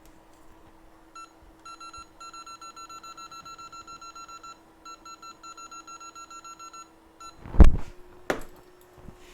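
Rapid electronic beeping, about five short high beeps a second in a long run with one brief break, from workbench rework equipment. The technician is starting to remove the CPU with hot air. A loud knock of a tool or object set down on the bench follows near the end, over a faint steady hum.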